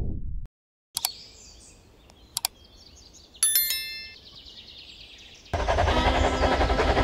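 A short ringing chime effect sounds a little over three seconds in, over faint outdoor ambience with bird chirps. About five and a half seconds in, a loud steady clattering noise begins: a toy train running along its plastic track.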